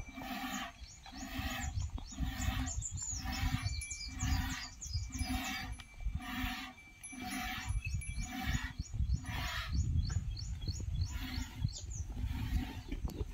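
A water buffalo being hand-milked into a plastic jug: milk squirting in even strokes about two a second, with high chirping in the background.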